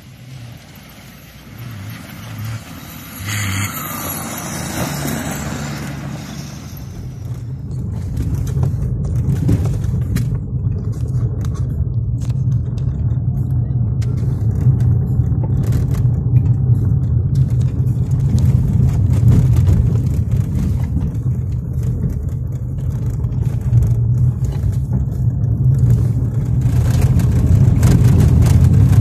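A cross-country rally vehicle racing past on a dirt track a few seconds in, its sound dropping in pitch as it goes by. Then the steady drone of a car's engine and tyres, heard from inside the cabin as it drives fast along a dirt road, with frequent knocks and rattles and growing louder near the end.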